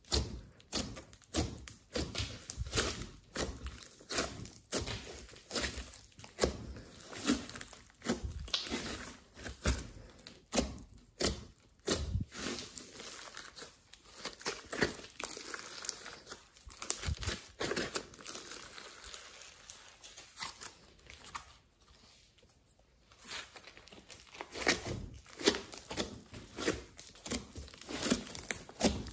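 Hands squeezing, folding and stretching a large lump of glossy slime mixed with clay and glitter, giving quick irregular sticky clicks and crackles as it is worked. The clicking eases off for a moment past the middle, then picks up again near the end.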